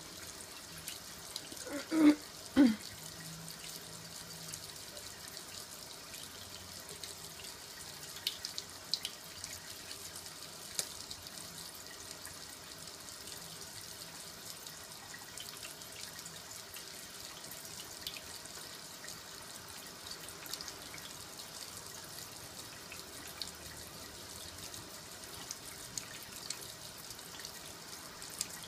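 Faucet running a thin steady stream into a sink, with small ticks and drips now and then as a green-cheeked conure dips under the water. Two short, loud vocal sounds about two seconds in.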